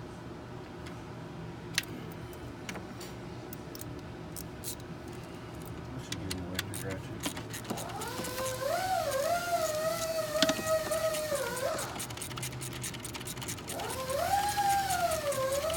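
Light clicks and taps, then a long wavering wail that rises and falls for about four seconds, starting some eight seconds in. A second wail starts near the end.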